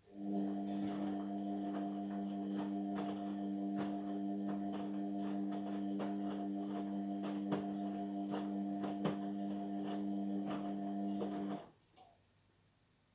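Indesit washing machine giving a steady electrical hum with scattered small clicks and taps over it. It switches on abruptly, runs for about eleven seconds and cuts off abruptly, with a single click just before it starts and just after it stops.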